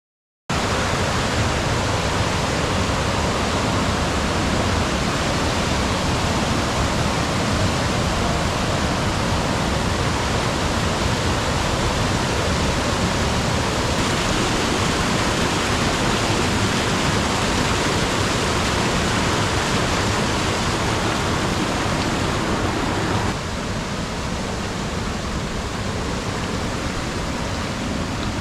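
Waterfall cascading down several rock steps, a steady, loud rush of water with no break, dropping a little in level about 23 seconds in.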